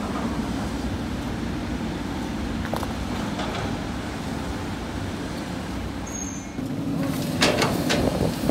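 Sany hydraulic excavator's diesel engine running steadily under load. About seven seconds in the sound grows louder, with knocks and clatter as a bucket of sand is dumped into a truck bed.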